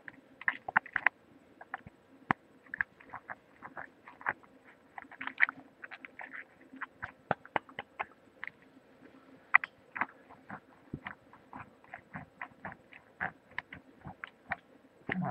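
Many quick, uneven clicks of a tongue striking the teeth, picked up through a webcam microphone.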